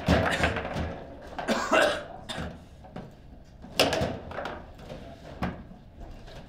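Table football in play: a run of irregular sharp knocks and clacks as the ball is struck by the rod-mounted figures and bounces off the table walls.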